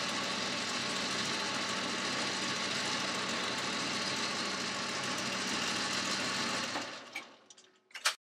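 Boxford lathe running with a boring tool cutting an 8 mm bore in a steel spindle, a steady machine noise. About seven seconds in the lathe is switched off and spins down, followed by two short clicks.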